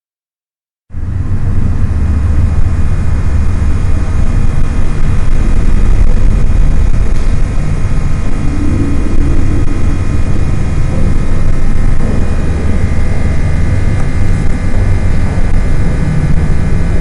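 Electrical chamber ambience: a loud, steady electric hum and low rumble that starts suddenly about a second in, with several steady high whining tones over it that grow a little stronger about two-thirds of the way through.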